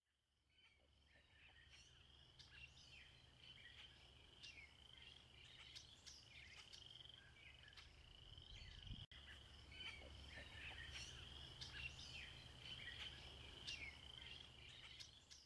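Faint outdoor ambience: birds chirping over a steady high-pitched trill and a low rumble. It cuts out for an instant about halfway through.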